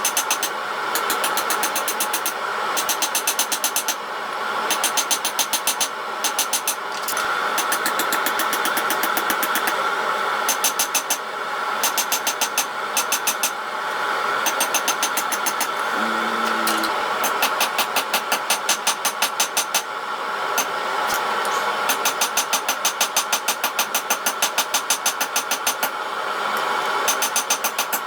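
Hammer blows on hot spring steel at the anvil, coming in quick runs of about six strikes a second, each run lasting a second or so, repeated throughout. A steady rushing noise runs underneath.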